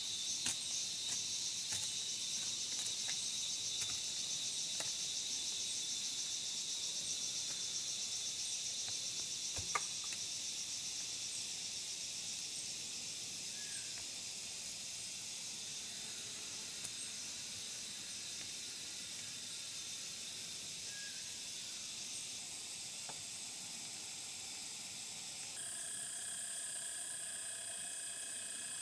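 Steady, high-pitched chorus of forest insects. There are a few light clicks in the first seconds and one sharper knock about ten seconds in. Near the end the chorus changes abruptly to a different set of pitches.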